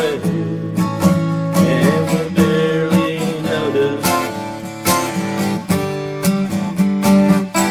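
Acoustic guitar being strummed in a steady rhythm of chords. A man's voice sings along over roughly the first half, then the guitar carries on alone.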